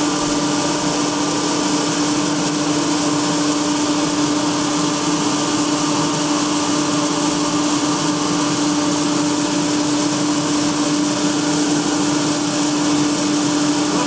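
Combine harvester running steadily: a constant machine hum with one strong steady tone under a wide hiss, while threshed barley grain pours from its chute into the grain tank.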